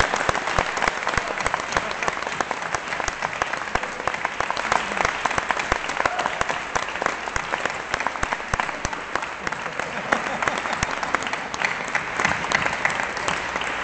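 An audience applauding in a long, steady round of clapping.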